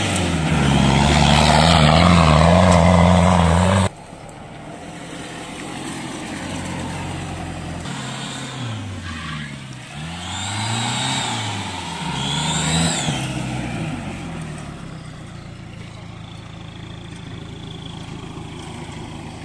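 Engine of a lifted Toyota Land Cruiser 70 off-roader running loudly close by, then cutting off abruptly about four seconds in. After that it is heard further off, revving up and down several times as the truck drives and climbs on a grassy slope.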